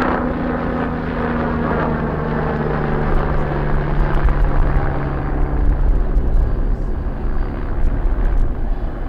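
MBB Bo 105 helicopter flying an aerobatic display overhead: twin turbine engines and main rotor with a steady hum. The low rotor beat grows louder and more uneven from about three seconds in.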